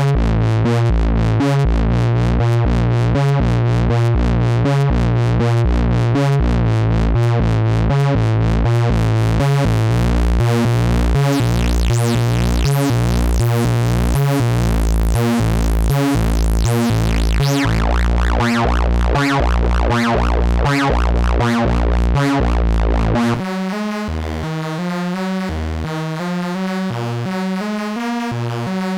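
Dreadbox Typhon monophonic analog synthesizer playing a factory preset: a fast, evenly repeating sequence of notes over a heavy bass, with the filter sweeping open and shut through the middle. About 23 seconds in, it switches to a quieter preset with a sparser, bouncing note pattern.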